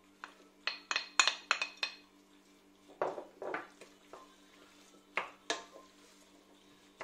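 Utensils and a serving dish clinking and scraping against a stainless steel mixing bowl while chopped green onion is mixed into raw lamb pieces: a quick run of clinks in the first two seconds, a rougher scraping stir about three seconds in, and two more clinks later.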